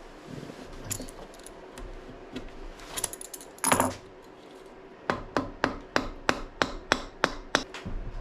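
Metal hand tools working on a motorcycle engine during teardown: scattered clinks and a louder clunk, then a run of about a dozen sharp, evenly spaced metallic clicks, roughly four a second.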